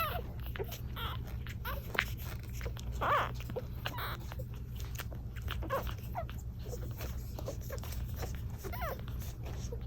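Newborn Chiweenie puppies nursing: a few brief high squeaks and whimpers, about three of them, over many small sucking and clicking noises. A steady low hum runs underneath.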